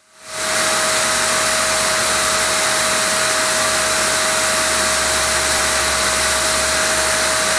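Water tunnel's pump and motor running steadily: an even rushing noise with a constant mid-pitched whine, fading in over the first half second.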